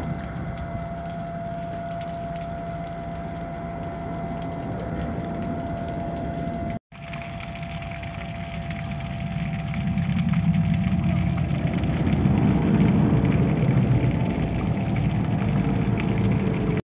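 An engine idling steadily, with a thin steady whine over it. After a brief cut about seven seconds in, the running grows louder and deeper from about ten seconds on.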